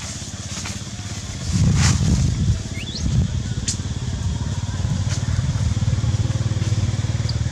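Steady low hum of an engine running, growing louder about a second and a half in, with a short rising chirp near the middle and a few faint clicks.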